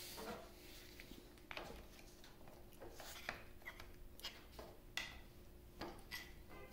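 Faint, scattered metal clicks and scrapes from a flat-bladed screwdriver prying at a collar stuck on a lathe headstock shaft.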